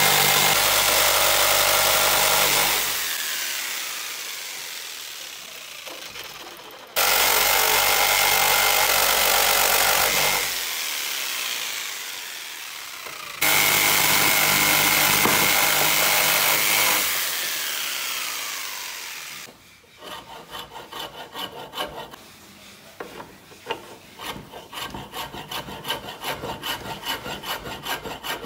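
Makita jigsaw cutting into a wooden board in three bursts, its motor winding down after each stop. From about two-thirds of the way in, a hand rasp files the wood in quick back-and-forth strokes, about two a second.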